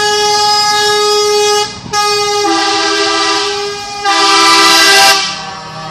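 Truck air horns blowing: a long single-note blast that breaks off after about two seconds, then two-note chord blasts, the loudest one about four seconds in.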